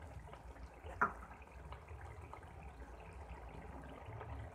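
Chicken and vegetable sauce simmering in a wok, a faint bubbling and crackling, with one sharp click about a second in.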